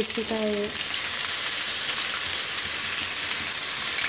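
Wet spice paste scraped from a glass bowl with a spoon into hot oil in a small pan, with a few spoon clicks at first. Under a second in, a loud, steady sizzle of the paste frying takes over.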